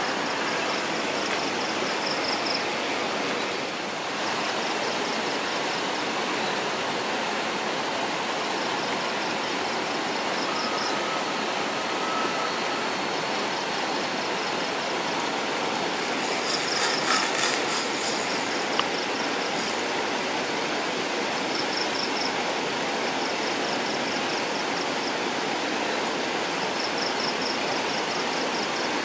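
Steady rushing hiss with an insect calling over it in short trills of rapid pulses, repeated every few seconds. A brief burst of rapid clicking comes about seventeen seconds in.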